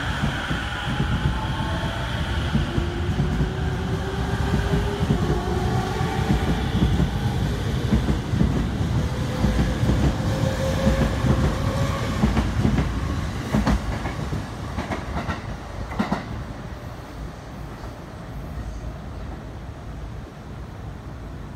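JR East E231 series electric commuter train accelerating out of the station, its traction motors giving a whine that rises in pitch over a loud rumble of wheels. The wheels clatter over rail joints, with a few sharp joint clacks about two-thirds of the way in, then the sound fades as the train draws away.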